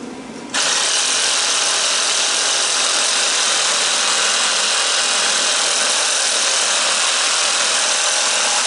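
Corded reciprocating saw (sawzall) cutting through a transformer's copper windings. It starts about half a second in and then runs steadily and loudly without a break.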